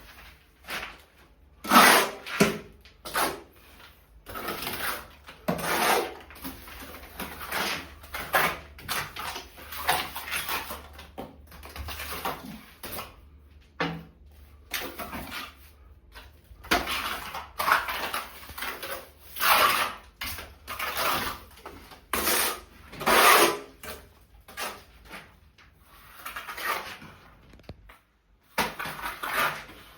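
Irregular scraping and knocking from hand-tool refurbishment work, a series of short noisy strokes and bumps at uneven intervals.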